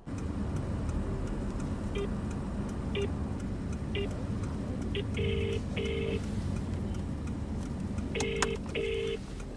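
Mobile phone call ringing out on speakerphone inside a car. Short beeps come about once a second, then from about five seconds in the double-ring ringback tone: two short buzzes, repeating about every three seconds. A steady low rumble of car cabin noise runs underneath.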